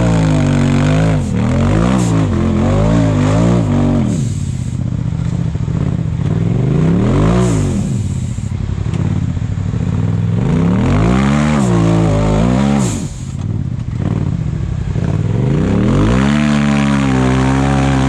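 Side-by-side UTV engine revving up and down again and again while crawling the trail, with a sharp climb in revs about seven seconds in and a longer high-rev stretch near the end.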